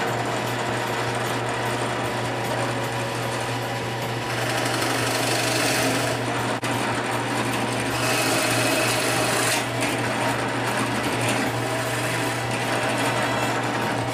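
Drill press running, its Forstner bit boring a hole in a wooden board under a steady motor hum. The cutting gets louder and hissier twice, about four seconds in and again around eight seconds in, as the bit is fed into the wood.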